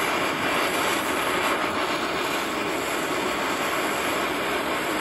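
Gas torch flame burning with a steady roar, heating a steel bolt until its colour changes for bluing.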